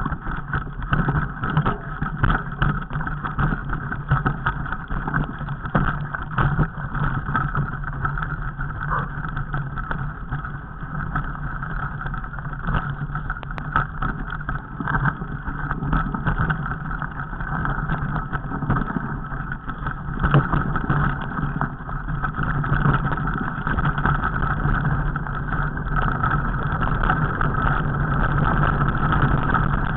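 Mountain bike rolling over a rocky trail: a steady rumble with many small knocks and rattles.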